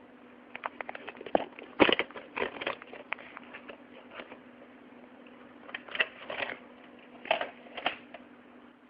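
Plastic packaging of a VHS tape being handled: irregular crinkling and sharp clicks in several short bursts over a faint steady hum.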